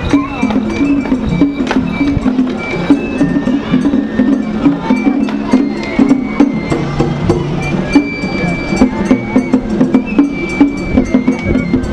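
Japanese festival float music: taiko drums beaten in a quick, steady rhythm with short held high melody notes over it.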